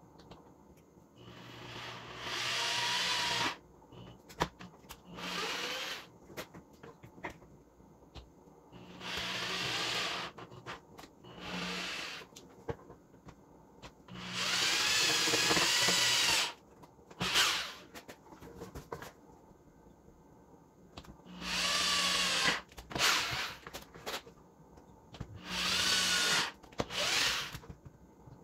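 Corded electric drill running in short bursts, about nine times, as pilot holes are drilled and screws are driven through caster-wheel mounting plates into wood. Its whine wavers in pitch under load, with small clicks and handling noise in the gaps.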